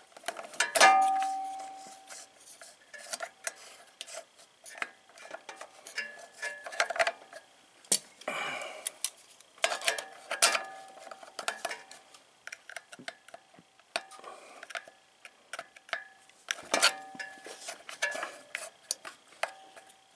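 Steel pliers clicking and clinking against the nut, washer and pinion gear of a Briggs & Stratton starter, an irregular run of small metal taps. One loud clink about a second in rings on briefly, and a short scrape comes a little before the middle.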